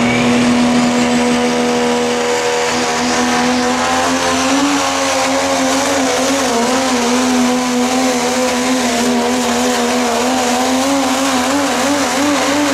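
Super stock diesel Dodge Ram pickup running at full throttle while pulling a weight-transfer sled, with a loud, high engine note and a hiss over it. From about four seconds in, the engine's pitch wavers up and down as the truck works down the track.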